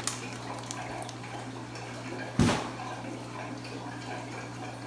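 Water sloshing and dripping as a fish net is worked in a plastic bucket of water, with one sudden louder thump about halfway through, over a steady low hum.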